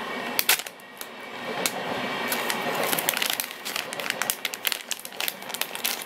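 Thin plastic packaging bag crinkling and crackling as it is pulled open by hand, a rapid run of sharp crackles that thickens after a brief lull about a second in.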